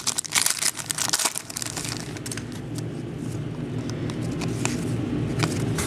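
Football trading cards being handled and flipped through: a quick run of clicks and rustles for about two seconds, then only occasional clicks over a steady low hum.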